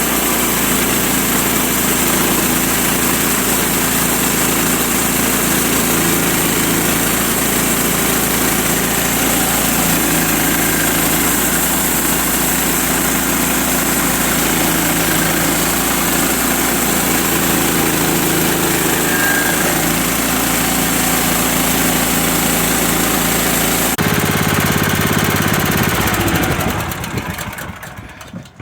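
Gas-engined log sawmill running steadily while cutting through a log. Near the end the engine winds down and stops.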